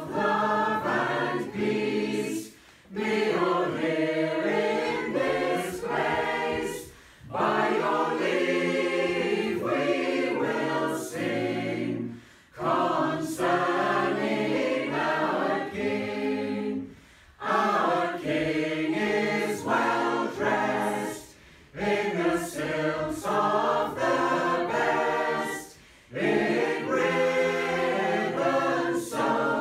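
Mixed community choir of men's and women's voices singing a cappella, in phrases of about four to five seconds with short breath pauses between them.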